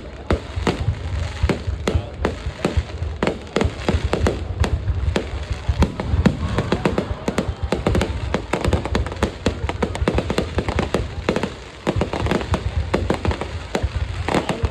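Fireworks display: a rapid, continuous barrage of bangs and crackles over a steady low rumble.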